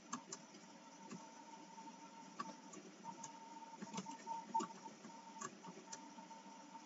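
Soft, irregular computer keyboard key clicks as a few words are typed, over a faint steady high hum.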